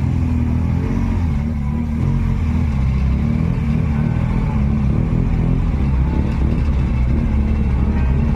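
Motor vehicle engine running steadily with a low rumble.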